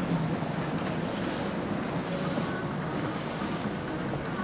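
Steady wind and water noise with a low rumble from a boat under way.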